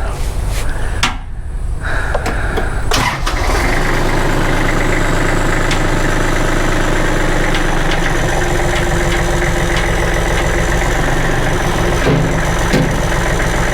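Loader engine running. After some knocks in the first few seconds, it settles about three seconds in to a steady, louder run that holds throughout.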